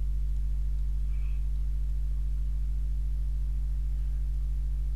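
Steady low electrical hum with a row of evenly spaced overtones, typical of mains hum picked up by the recording setup.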